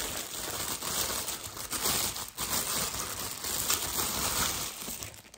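Clear plastic packaging bag crinkling and rustling continuously as it is handled and pulled open, easing off near the end.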